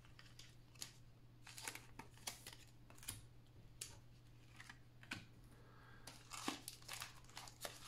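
Near silence with faint, scattered clicks and rustles of trading cards and foil card packs being handled, a little busier near the end, over a steady low hum.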